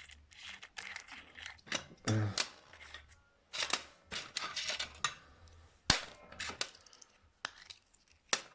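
Small hard objects being handled and set down on a workbench: irregular clicks, clatters and rustles, with two sharp knocks about six and eight seconds in, as a soldering iron tip is taken off to be swapped.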